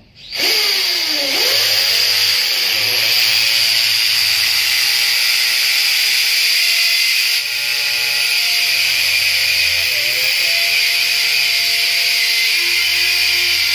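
Corded electric drill running continuously as it bores into the wall at a bracket beside a window frame; the motor's pitch sags several times as the bit bites under load, easing off briefly about halfway through.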